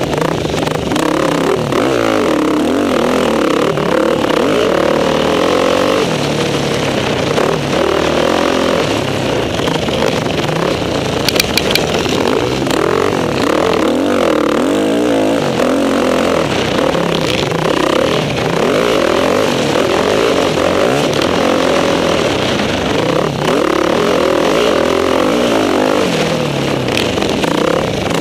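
Motocross bike engine heard up close from the rider's own bike, revving up and down continuously as it is ridden hard round a dirt track. A few sharp knocks come about eleven seconds in.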